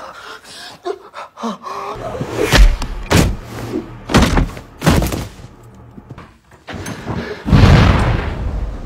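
Film sound effects of heavy thuds: four sharp hits about half a second to a second apart, then a loud low rumble starting near the end.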